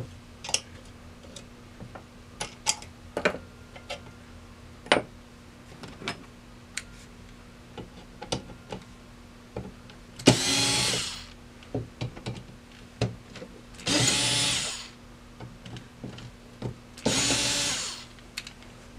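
Cordless electric screwdriver running in three short bursts of about a second each, backing screws out of the back plate of a Victor 77 gumball vending mechanism. Light clicks and taps of small metal parts sound in between.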